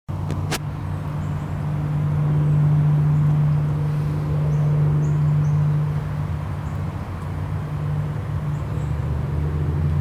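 Steady low engine hum, like a motor vehicle or machine idling close by, with a couple of sharp clicks in the first half second and a few faint high chirps.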